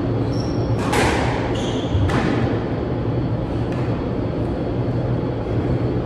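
A squash rally on an indoor court: the ball is struck and smacks off the walls, with two loud hits about one and two seconds in and fainter knocks later. Short high squeaks of sneakers on the wooden floor sound over a steady low hum.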